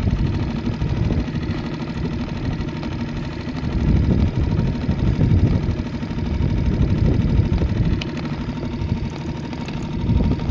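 Boat engine idling with a steady low rumble, swelling louder about four seconds in and again a little later.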